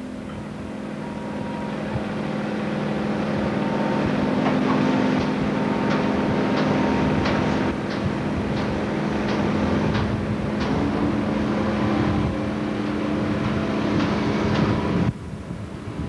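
A tug's engines droning steadily with wind noise, and a string of sharp rattling knocks through the middle. The sound drops away abruptly about a second before the end.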